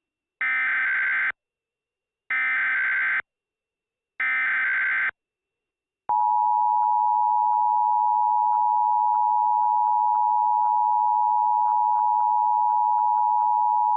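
Emergency Alert System tones. First come three one-second blasts of screechy warbling data tones (the SAME header), a second apart. Then the EAS attention signal: a steady two-tone beep (853 and 960 Hz) held for about eight seconds, announcing an alert.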